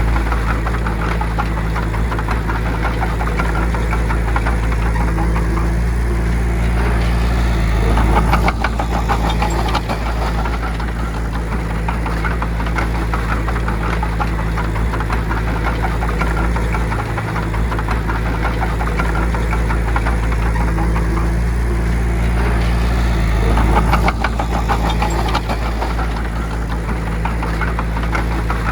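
A bulldozer's heavy diesel engine runs steadily with a deep hum. It swells in level twice, about 8 and 24 seconds in, as it comes under load.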